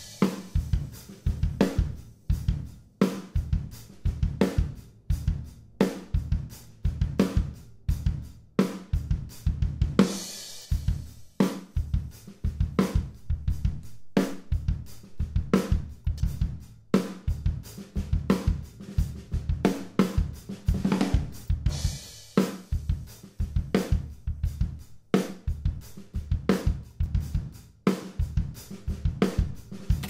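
Acoustic drum kit playing a steady beat on kick, snare and hi-hats, heard through the room microphones with Neve-style compression that adds length and size to the snare and kick. A cymbal crash about ten seconds in.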